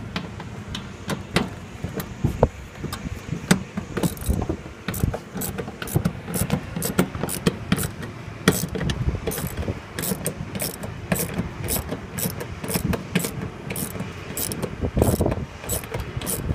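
Hand tool working on the compressor's fittings: a steady run of sharp metallic clicks, denser and more regular from about four seconds in at roughly two to three a second.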